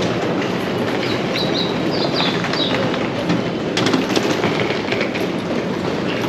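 Commuter train running on the rails with a steady rumble. There are a few short high squeaks in the first half and a quick run of clicks just past the middle.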